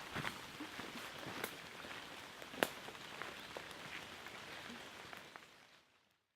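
Steady rain falling in a forest, with scattered individual drops striking close by, one louder than the rest about two and a half seconds in. The rain fades out near the end.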